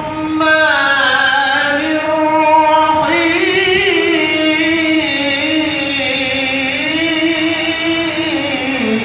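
Quran recitation (tilawah): a single voice chanting in long held notes with wavering ornaments, climbing higher about three seconds in and sliding down near the end.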